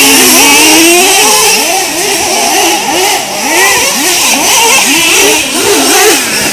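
Several 1/8-scale two-stroke nitro RC truck engines racing, their whining pitch rising and falling over and over as each one throttles up and lifts off, the engines overlapping one another.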